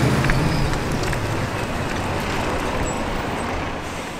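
Heavy-haulage truck towing an empty multi-axle lowbed trailer, its diesel engine fading away as the rig pulls off, leaving a rumble of road and traffic noise.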